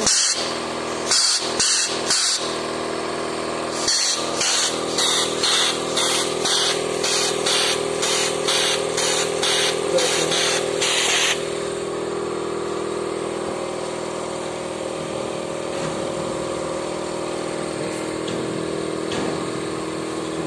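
Pneumatic valve block for a Heidelberg Speedmaster CD 102 press being switched on a test bench: short hisses of compressed air venting, a few spaced ones at first, then a quick run of about two a second that stops about eleven seconds in. A steady mechanical hum runs underneath.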